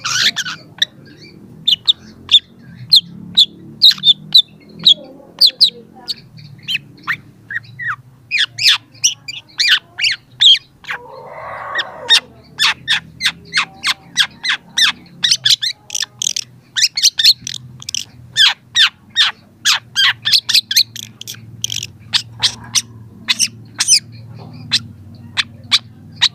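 Young long-tailed shrike singing a fast, sustained run of short, sharp, high chipping notes, several a second, broken about eleven seconds in by a harsher, lower call.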